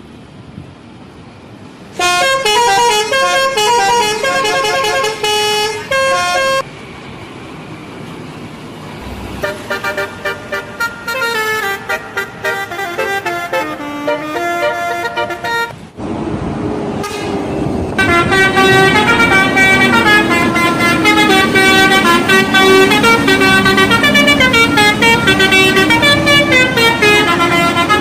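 Telolet horns on Indonesian buses, multi-tone air horns playing quick, jingling melodies of rapidly changing notes. The melodies come in three runs: a loud one about two seconds in, a choppier one in the middle, and a long unbroken one through the last ten seconds.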